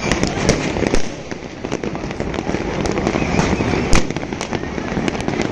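Fireworks and firecrackers going off in many places at once: a steady din of crackling and popping, with sharp bangs about a second in and the loudest one near four seconds.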